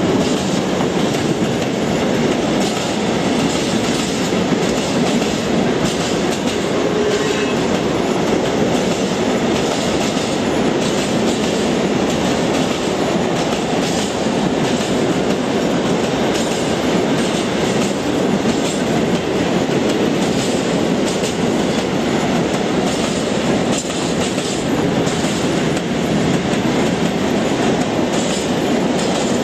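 Freight train of open wagons rolling past at speed: a steady rumble of steel wheels on rail with clickety-clack.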